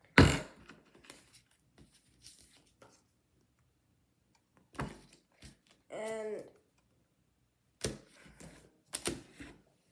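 Pokémon trading cards being handled at a wooden table: a sharp knock on the tabletop just after the start, then soft rustles and taps as cards are slid and set down, with a few more sharp taps near the end.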